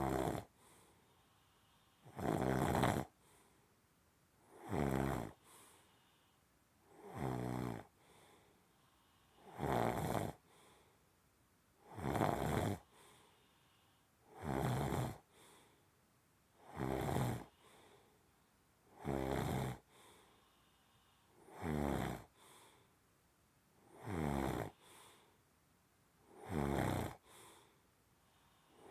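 Steady, regular snoring: about twelve snores, one roughly every two and a half seconds, each followed by a short, softer breath.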